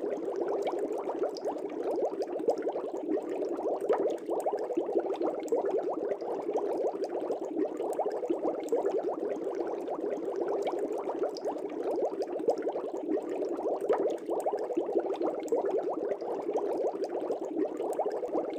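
Aquarium air bubbles streaming up through water: a steady, dense bubbling made of many small gurgles and pops.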